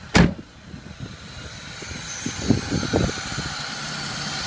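Volkswagen T4 van's 2.5-litre five-cylinder engine idling just after a cold start, growing louder toward the end. A single sharp knock comes about a quarter second in, and a few dull thumps come around the middle.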